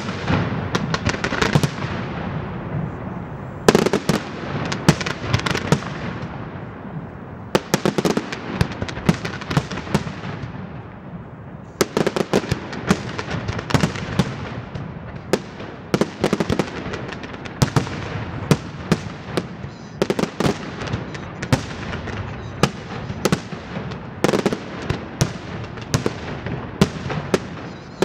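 Aerial fireworks display: shells bursting one after another, with sharp reports coming in dense clusters every few seconds over an unbroken background of bangs and crackle.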